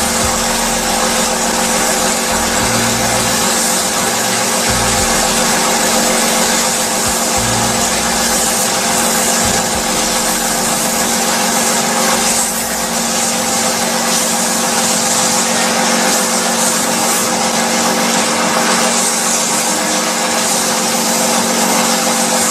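Water-oxygen facial cleaning machine's pump running steadily: a constant hum with a hiss over it.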